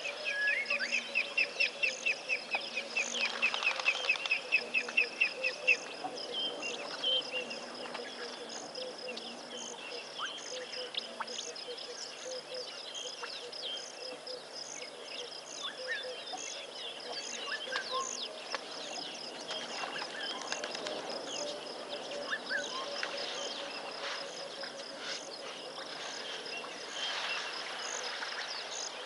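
Waterhole bush soundscape: insects drone steadily while birds call. A bird calls in a fast run of repeated notes for about the first six seconds, and scattered chirps follow.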